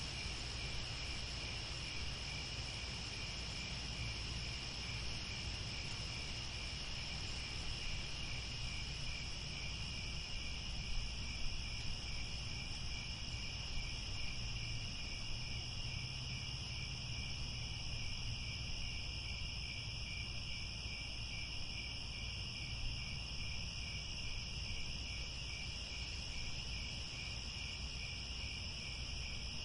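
Steady chorus of crickets chirping in an even, rapid pulse, over the low rush of a crackling fire, with a few louder pops from the fire near the middle.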